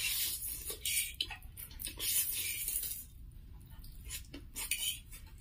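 Two people slurping spicy instant noodles, with several hissy slurps in the first three seconds and softer ones after.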